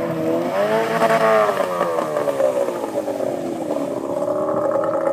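Duck boat's Yamaha 25 motor running hard. Its pitch rises about a second in, falls away, then settles into a steady drone as the boat runs across shallow flooded ground.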